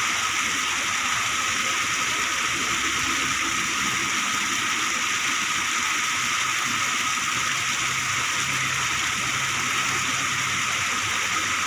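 Water gushing steadily where it spills over a concrete channel edge into a pool, a constant rushing sound.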